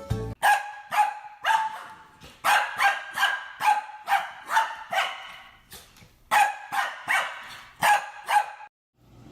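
A dog barking repeatedly, sharp high-pitched barks in quick runs of about two a second, cut off abruptly near the end.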